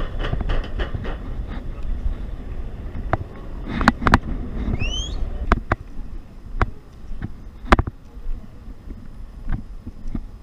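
Outdoor street ambience picked up by a body-worn camera: a low rumble for the first couple of seconds, then scattered sharp clicks and knocks about once a second and one short rising chirp about five seconds in.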